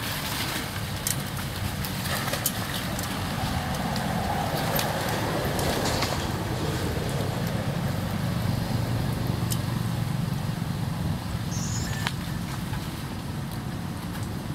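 Steady low rumble of distant road traffic, with a few light water splashes from a swimming monkey.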